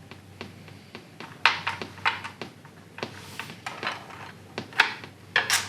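Mahjong tiles clacking: a string of sharp clicks and knocks as tiles are set down and knocked against each other, with louder clacks about a second and a half in and near the end.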